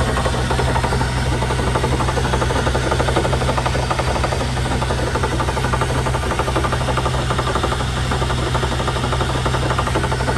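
Rear differential of a 2001 Chevy Suburban grinding and clattering steadily as the drivetrain turns: a fast continuous rattle over a low hum. The owner traces it to the differential and suspects a failed bearing.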